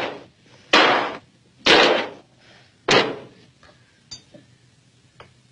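Three loud, sharp whacks about a second apart, each dying away quickly, followed by a few faint clicks.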